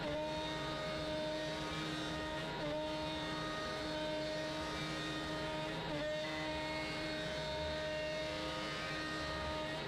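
Router on a Shapeoko CNC machine running a bowl and tray bit as it mills a pocket in a wooden block, giving a steady high whine. The pitch dips briefly twice, about three and six seconds in.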